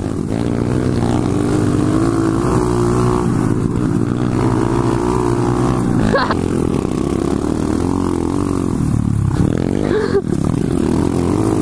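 2015 SSR 125cc pit bike's single-cylinder four-stroke engine running hard under race throttle. The note climbs and drops a few times as the rider shifts and works the throttle, most clearly about six seconds in and again near the ten-second mark.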